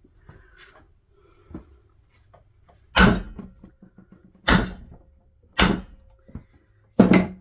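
Four heavy hammer blows, a second or so apart, on a seized part of a potter's wheel that will not come loose, each with a short ring.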